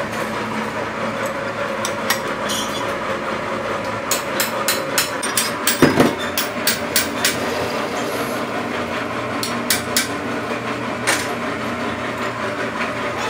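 Metal lathe running under cut on a large steel workpiece, a steady motor and gear hum. Over it comes a run of irregular sharp clicks and ticks from about four to eleven seconds in.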